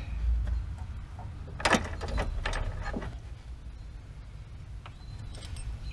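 Small metal parts, fender washers and bolts, clicking and clinking as they are handled, with a cluster of sharp clicks about two seconds in, over a low steady rumble.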